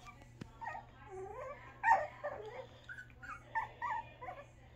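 Five-week-old puppy giving a string of short, high whimpers and yips while it plays with its mother, the loudest about two seconds in.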